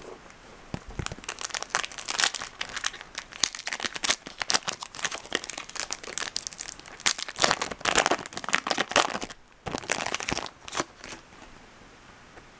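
Foil wrapper of a Topps Chrome trading-card pack being torn open and crinkled: a dense, irregular run of crackles that stops about a second and a half before the end.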